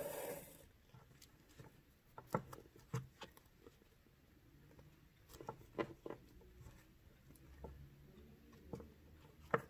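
Faint handling sounds of hand bead embroidery: a short hiss of thread being drawn through near the start, then scattered small clicks of the needle and beads as they are stitched onto the backing.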